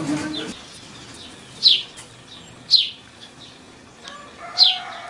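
A small bird chirping: three loud, short falling chirps, with fainter calls between them.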